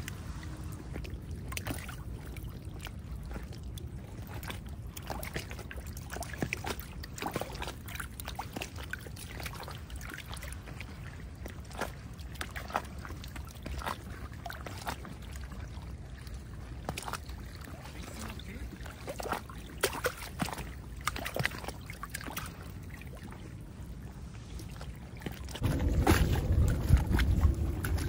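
Wind rumbling on the microphone, with scattered sharp clicks and crackles throughout; the wind rumble turns clearly louder near the end.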